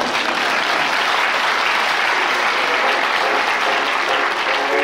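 Theatre audience applauding steadily after a joke in a live comedy show.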